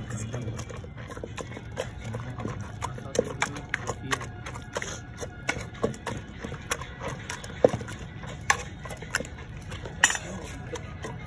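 Hand masher knocking and scraping against the bottom of an aluminium pressure cooker while mashed potato, aubergine and tomato are pounded, in irregular knocks and clicks with a few louder thumps in the second half.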